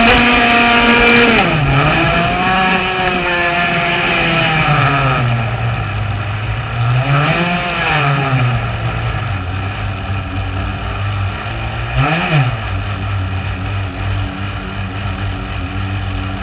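Shockwave 55 RC boat's small gas two-stroke engine, heard from onboard, running at high revs, then throttled back, with two short blips of throttle about seven and twelve seconds in before it settles to a low, steady run.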